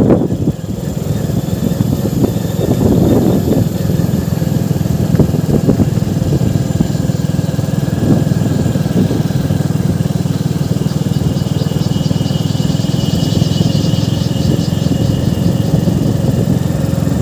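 Hero Glamour 125 motorcycle's single-cylinder four-stroke engine running steadily as the bike is ridden along at an even pace.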